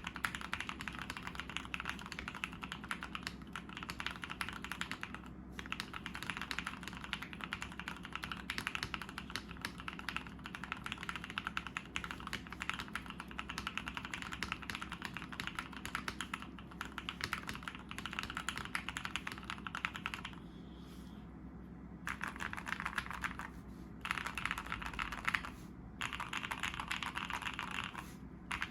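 Continuous fast typing on a custom 60% mechanical keyboard: lubed Gateron Yellow milky-top linear switches on an aluminium plate in a Tofu60 frosted acrylic case, dampened with PE foam and an O-ring mount. It is a dense run of keystroke clacks with a few short pauses in the last third.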